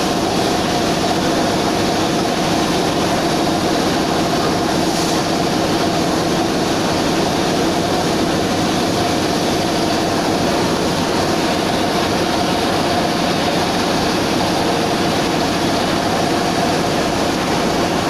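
A steady machine drone with a constant hum.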